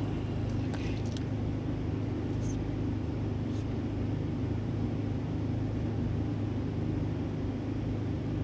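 A steady low mechanical hum, unchanging in pitch and level, with a few faint short high ticks in the first few seconds.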